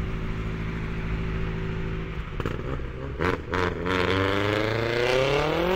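Modified Tofaş Şahin's engine and exhaust running at steady revs, then, after a few short clicks around three seconds in, accelerating with its pitch rising steadily.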